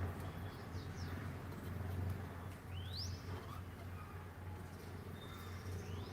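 A few short, rising chirps from cockatiels, the clearest about three seconds in, over a steady low hum.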